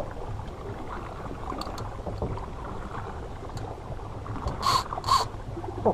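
Steady low rumble on a boat at sea, with water and wind noise. Two short, sharp sounds come close together near the end.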